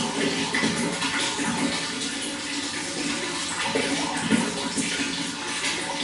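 Running water flowing in a steady rush broken by many small splashes.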